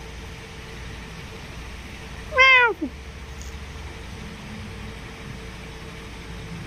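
A single loud meow about two and a half seconds in, falling in pitch, over a low steady background rumble.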